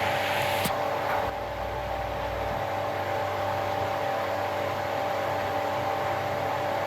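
Steady hiss of fine-bubble water sprays running inside a human washing machine capsule, over a steady machine hum with two held tones. A single sharp click about a second in.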